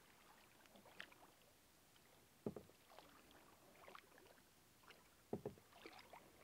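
Near silence on still water, broken by faint scattered knocks and drips of a canoe being paddled; the two plainest knocks come about two and a half and five and a half seconds in.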